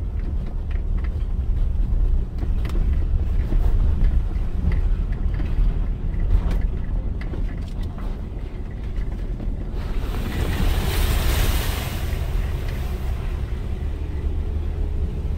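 Inside a Dodge car crawling along a rough dirt track: steady low rumble of engine and tyres, with scattered knocks and rattles from the bumps. About ten seconds in, a rushing, hissing noise rises for two or three seconds, then fades back into the rumble.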